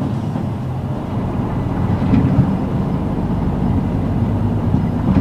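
Running sound of a 2001 Hino KL-HU2PMEA city bus under way: its diesel engine runs steadily over low road rumble, the engine note blurring into rougher noise for a few seconds in the middle.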